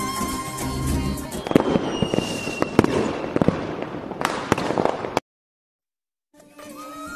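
Background music gives way about a second and a half in to fireworks: a series of sharp bangs with crackling and a faint falling whistle. The fireworks cut off suddenly into a second of dead silence, and then music fades back in near the end.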